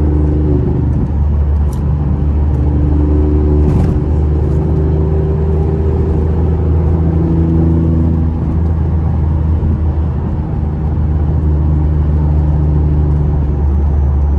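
Modified BMW i8's turbocharged three-cylinder engine running under load while driving, a steady low drone whose pitch drifts up and down a little.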